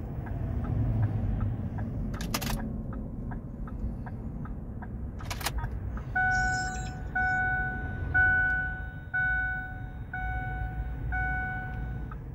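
Diesel truck's dashboard warning chime ringing six times, about once a second, as the ignition is cycled on and off to prime the fuel system after running out of fuel. Before it come light rapid ticking, about three a second, and two sharp clicks, over a steady low rumble.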